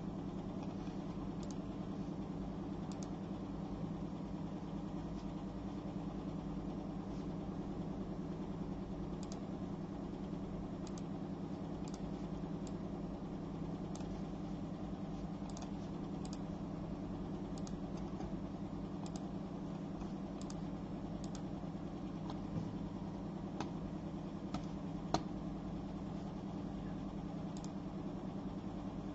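Steady low hum of room and equipment noise, with scattered faint clicks of a computer keyboard or mouse being worked; one click about three-quarters of the way through is a little louder.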